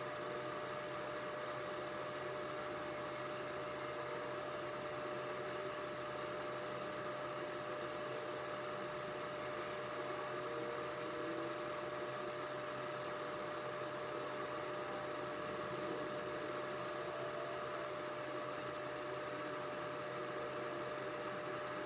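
Steady background hum with a constant tone and an even hiss, unchanging throughout, with no distinct knocks or scrapes standing out.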